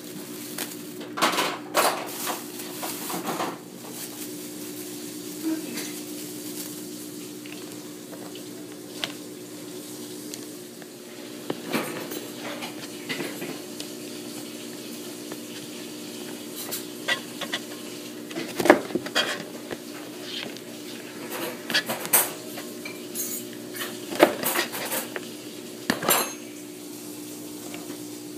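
Kitchen knife cutting the ends off green beans on a plastic cutting board: irregular sharp knocks and clicks, with the plastic bag of beans rustling near the start and a steady low hum underneath.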